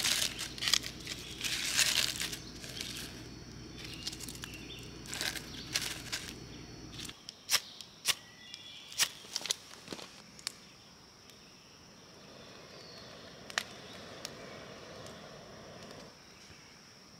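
Dry bark tinder crinkling as it is pressed into the cuts of a Swedish torch log, then a handful of sharp scrapes of a ferro rod being struck, and faint crackling as the tinder catches.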